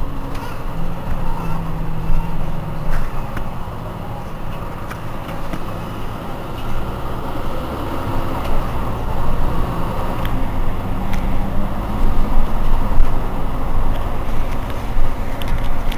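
Mercedes-Benz Citaro C2 city bus idling with a steady low engine hum.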